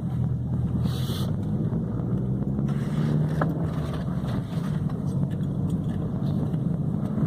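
Fiat Palio Fire engine running steadily during a test run, just after its gearbox and clutch were refitted.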